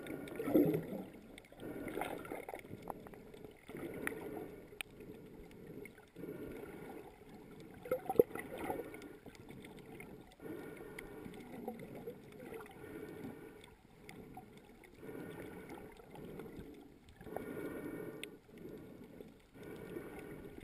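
Muffled underwater noise picked up by a camera held below the surface, swelling and fading every second or two as the snorkeler swims, with a sharp click about eight seconds in.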